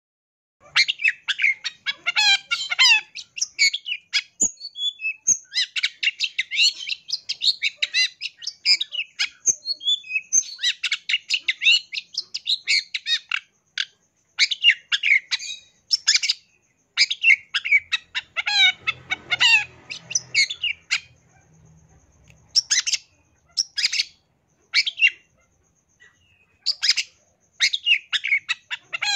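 Long-tailed shrike (cendet) singing a fast, chattering song of rapid high notes in bursts separated by short pauses, with mimicked calls of other birds worked in. It starts about half a second in.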